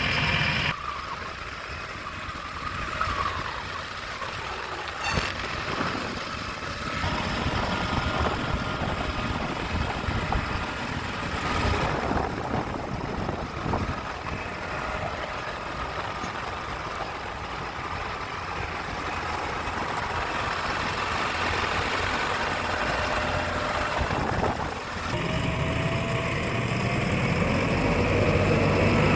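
Heavy diesel engines of a backhoe loader and tractors running steadily, with the sound changing abruptly a few times.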